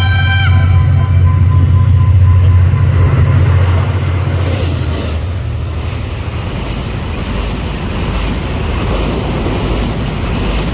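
Henschel diesel locomotive passing at speed: its horn cuts off about half a second in, then its engine's deep, loud drone for about four seconds. After that comes the steady rushing noise of the passenger coaches going by.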